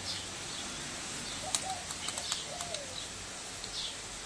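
Birds chirping in short, falling calls, with a few sharp light clicks of a screwdriver and metal parts as a TV is taken apart.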